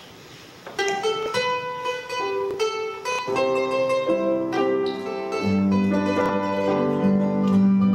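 An acoustic folk ensemble begins a tune: after a brief quiet, plucked strings pick out a melody of single notes. More instruments join about three seconds in, and a steady held low note comes in about halfway through.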